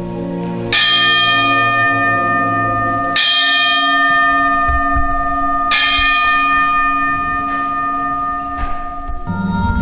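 A church bell tolling three times, about two and a half seconds apart, each stroke ringing on long after it is struck.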